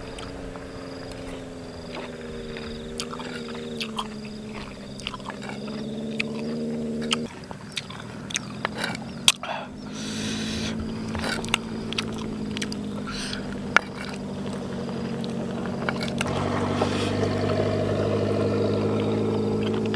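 An engine runs steadily in the background, its pitch drifting slowly and shifting twice, about a third and four fifths of the way through. Over it come sharp clicks of a metal spoon against a clay bowl and soft eating sounds.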